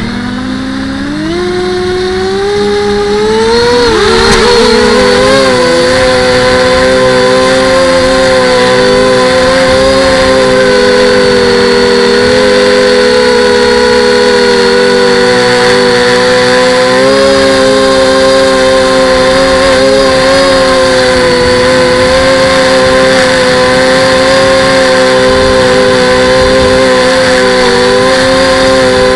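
FPV quadcopter motors whining. They rise in pitch over the first few seconds as they spin up, then hold a loud, steady whine with small wavers as the throttle shifts.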